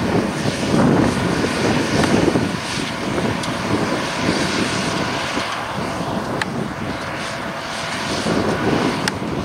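New Holland T7030 tractor's six-cylinder diesel running steadily under load, pulling a Pöttinger loader wagon as it picks up a swath of cut grass for silage.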